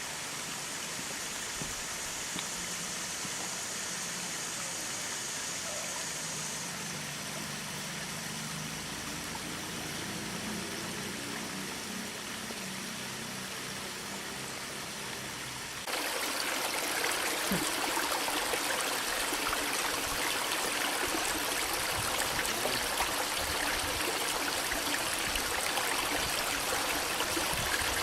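A creek and small waterfalls running with a steady rush of water. About halfway through it changes abruptly to a louder, brighter rush.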